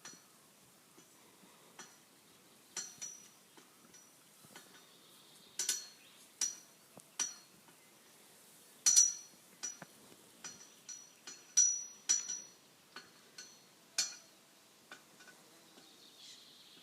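Highland cattle scratching their necks against something metal, which clinks and knocks irregularly, each knock with a short ring at the same pitch. The clinks come in loose clusters, loudest about halfway through.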